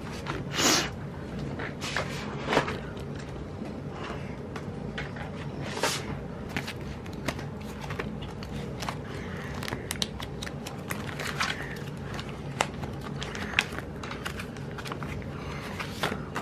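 Paper and planner stickers being handled: scattered light crackles, rustles and small taps, with a few louder rustles about a second in, near three seconds and around six seconds, over a low steady hum.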